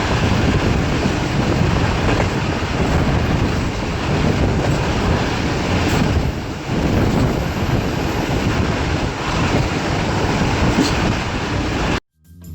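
Express passenger train running at speed: a loud, steady rush of wheels on rail with rapid clickety-clack. It dips briefly about halfway through and cuts off suddenly near the end.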